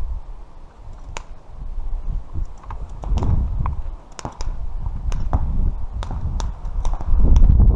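Footsteps on a dry dirt trail, crunching and snapping twigs in irregular clicks, over a low rumble on the camera microphone.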